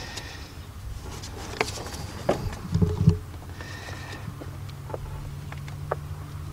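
Scattered small clicks and knocks of hands working a camshaft position sensor into its bore in the cylinder head, with a few louder knocks about three seconds in. A low steady hum sets in about two-thirds of the way through.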